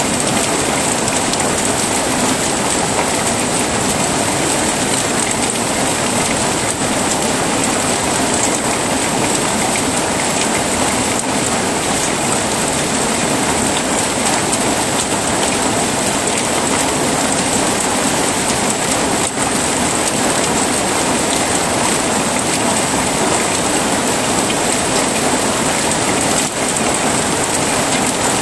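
Heavy rain falling steadily, an even hiss and patter with no breaks or thunderclaps.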